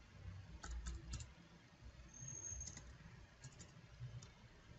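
Faint computer-keyboard typing: a few short clusters of key clicks.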